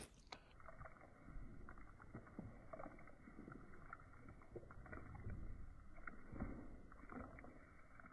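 Very faint, irregular soft clicks and rustles from a horse working its lips and mouth close to the microphone.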